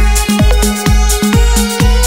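Electronic dance music with a steady kick drum about twice a second under held synth notes.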